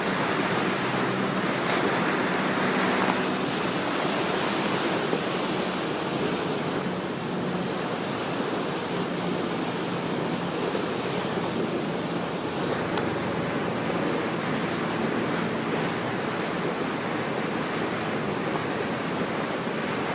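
Steady rushing of falling water and wind from a boat close to a big waterfall, with a faint low engine hum underneath.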